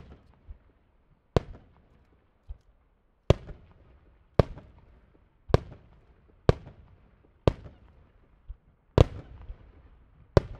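Japanese aerial firework shells bursting in quick succession: about nine sharp bangs, roughly one a second, each trailing off in a rolling echo. Quieter low thumps fall between some of the bangs.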